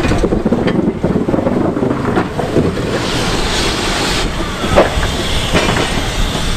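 Double Fairlie narrow-gauge steam locomotive rolling slowly past, its wheels clicking and knocking over the rail joints and points. Steam hisses from the open cylinder drain cocks, building from about three seconds in, with a brief squeal near five seconds.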